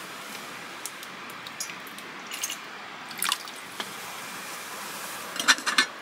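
Steady rush of flowing stream water, with a few faint ticks. Near the end comes a quick cluster of light metallic clinks as a stainless steel cup's folding wire handle is gripped and lifted.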